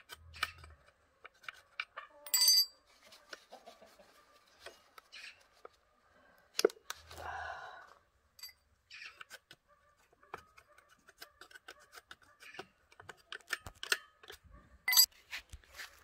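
Scattered clicks and small metal clinks of chainsaw parts being handled on concrete as the guide bar and chain come off. A louder ringing metallic clink comes about two seconds in, a sharp knock with a brief rustle about halfway, and another sharp click near the end.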